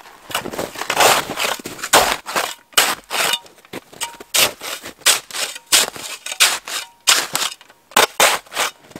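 Snow shovel chopping and scraping into hard, crusty packed snow: a quick, irregular run of sharp crunches, about two a second.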